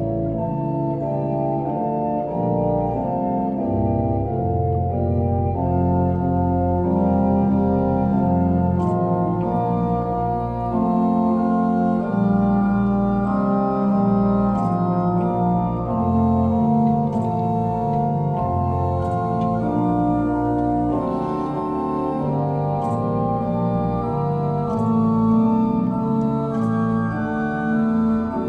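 The large pipe organ of St. Johannis, Lüneburg, playing a slow piece in full held chords whose notes change about once a second.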